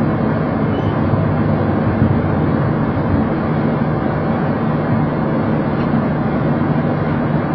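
Steady cockpit rumble of a Boeing 737 rolling slowly along the runway after landing: the engines at low power and the wheels on the tarmac, with a low hum underneath.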